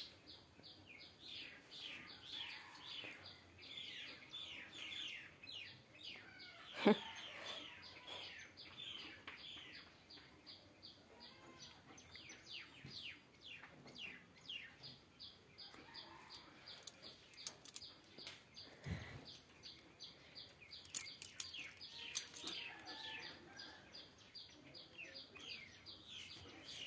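Small birds chirping, many quick short notes that each fall in pitch, going on almost without a break. About seven seconds in, one brief louder squeal slides sharply down.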